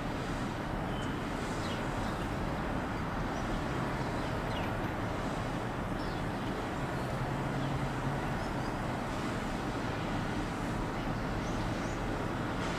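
Steady low rumble of distant road traffic, with a few faint short high chirps scattered through it.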